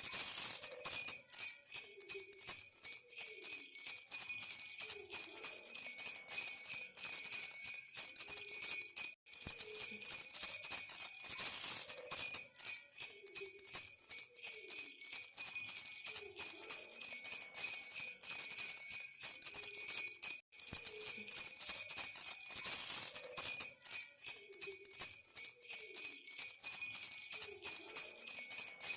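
Baby rattle with small bells shaken continuously: a steady, dense jingling that cuts out for an instant twice.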